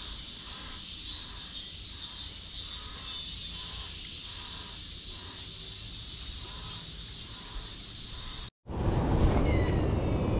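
Summer insect chorus, a steady high buzzing with a faint repeating pulse. About eight and a half seconds in it cuts off, and a louder rushing noise of wind and rain on the microphone takes over.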